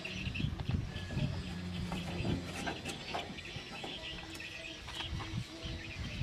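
Small birds chirping steadily, with a few soft knocks and low thuds scattered through.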